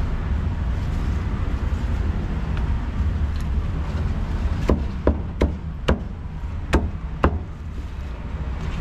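Cleaver chopping meat on a wooden block: six sharp strikes in under three seconds, starting about halfway through, over a steady low background rumble.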